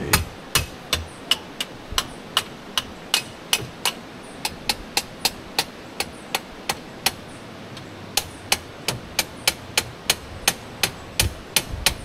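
Hand hammer striking repeatedly in a steady rhythm, sharp ringing blows about two to three a second, pausing briefly around the middle.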